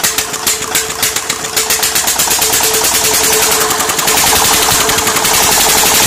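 Locally built diesel engine running, its firing strokes speeding up from a slow chug of about three beats a second into a rapid, even clatter as it picks up speed, getting louder.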